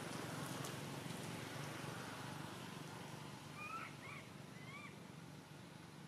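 Baby macaque giving three short, high, thin cries about halfway through, each a quick upward or hooked squeak, over faint steady forest background.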